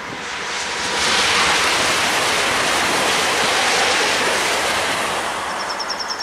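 ICE high-speed electric train passing at speed: a loud rush of wheel and air noise that swells about a second in and fades away near the end. A fast, high ticking trill starts near the end.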